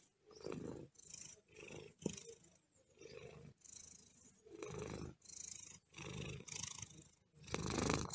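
Tabby cat purring close up, the purr swelling and fading in repeated bursts with each breath in and out, loudest near the end.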